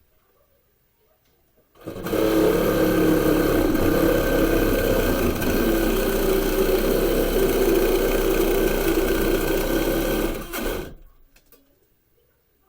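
Electric power saw running steadily while cutting through sheetrock, starting about two seconds in and stopping shortly before the end.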